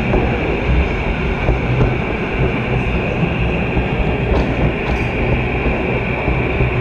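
Steady running noise of an O-gauge model train rolling along its track, heard from a camera riding on a wagon behind the diesel locomotive: a dense rumble with a constant whine on top and a couple of light clicks.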